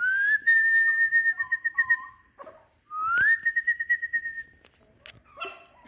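A person whistling two long notes, each sliding up and then held with a pulsing warble, the second starting about three seconds in. Fainter, lower whimpers from the Pomeranian puppies sound under the first whistle.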